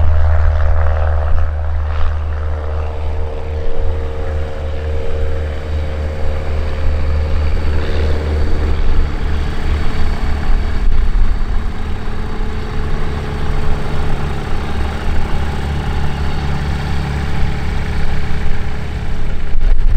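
A JMB Aircraft VL-3 Evolution light aircraft's piston engine and propeller running at low power as it taxis, a steady drone over a strong low rumble. The engine tones are clearest in the first few seconds and then fade.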